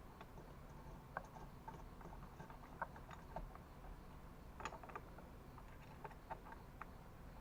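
Scattered light clicks and taps of small metal parts and tools being handled, irregular and faint over a low steady hum.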